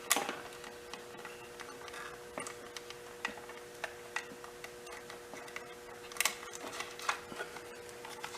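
Scattered light clicks and taps of electrical wires and small switch parts being handled and pulled through a control box, with a louder click about six seconds in, over a faint steady hum.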